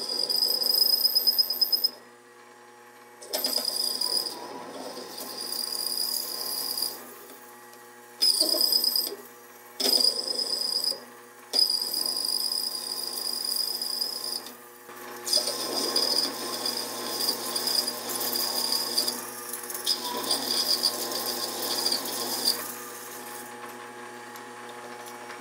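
Benchtop lathe cutting a 29 mm hole in aluminium, the tool screeching in repeated bursts of one to several seconds, a really nasty sound, while the motor hums steadily between them. The cutter chatters and grabs as it goes in, and the motor hum runs alone near the end.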